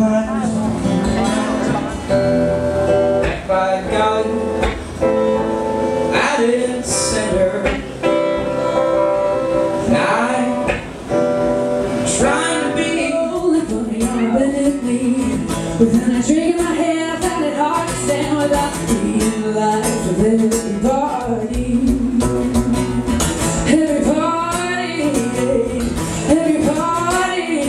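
Live music: a song played on guitar, with a singing voice.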